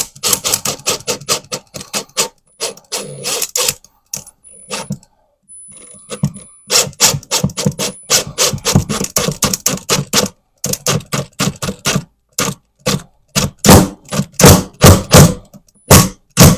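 Hand-tool work on a wood backer behind a drywall patch: a quick run of sharp clicks, knocks and scrapes, growing louder and more regular, about two strokes a second, in the last few seconds.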